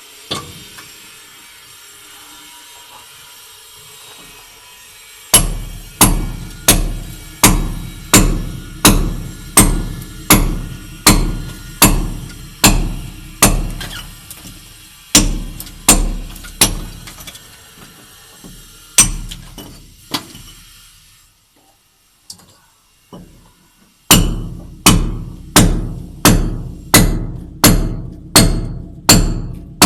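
Hammer blows struck at an even pace of about three a second, each a sharp crack with a deep thud. They come in two runs with a short pause between, after a faint steady hum.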